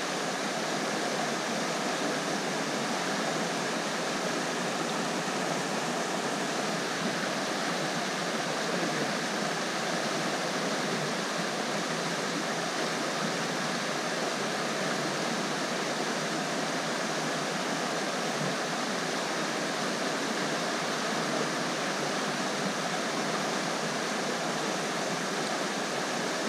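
Steady rush of a fast-flowing mountain river, an even, unbroken sound of running water.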